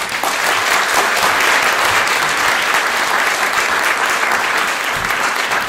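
Audience applauding at the close of a talk: many hands clapping in a dense, steady patter.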